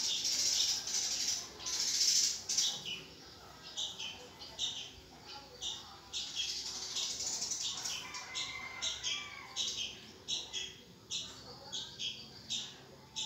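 Red-whiskered bulbul nestlings begging: short, high, squawky calls, a near-continuous chorus for the first two seconds or so, then single calls about twice a second.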